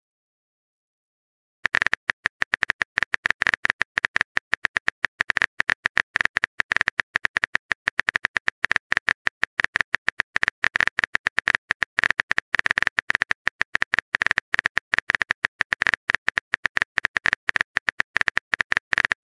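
Texting-app keyboard typing sound effect: a fast, even run of short key clicks, several a second, that begins about a second and a half in as a message is typed out.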